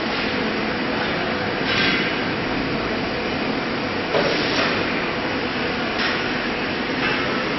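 Acctek AKM1325C CNC router running, its spindle and bit working an acrylic sheet: a steady noisy whir with brief louder swells every second or two.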